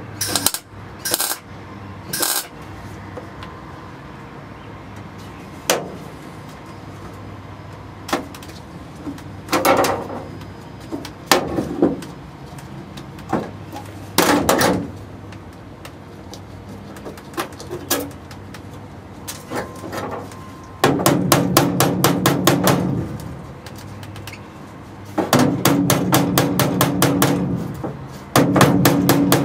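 A MIG welder crackles in three short tack-weld bursts at the start, followed by scattered single knocks on sheet steel. Near the end a hammer taps rapidly on the steel floor pan in runs of a few seconds, each run ringing.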